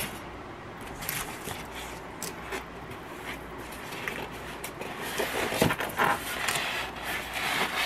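Cardboard box flaps and a packing insert being handled as an appliance box is opened: a run of irregular scrapes, rustles and light knocks of cardboard, growing busier in the second half.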